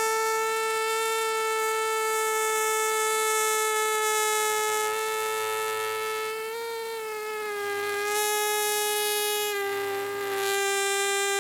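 Cartoon sound effect: one long held tone that sinks slightly in pitch in a few small steps, with a brief hiss near the end.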